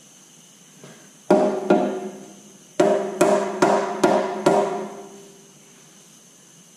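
Hammer knocks on a cast metal flywheel housing as it is tapped onto the Detroit 3-53 engine block over its dowels, each knock ringing briefly. There are two knocks, a short pause, then five more in quick succession.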